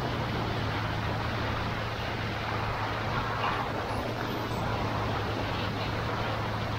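Off-road vehicle driving steadily along a flooded road: a constant low engine hum under a wash of tyre and water noise.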